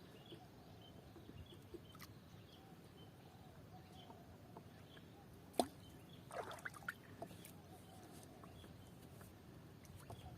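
Faint outdoor ambience: a low steady background noise with small high chirps every second or so, a sharp click a little past halfway, and a short cluster of knocks just after it.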